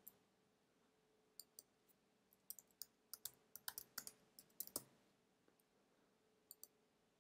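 Computer keyboard keys clicking as a password is typed: short, irregular runs of keystrokes, then two more clicks near the end, over a faint steady hum.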